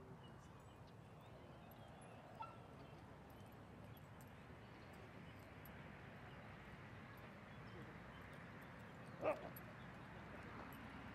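A dog gives a single short bark about nine seconds in, over faint steady outdoor background noise.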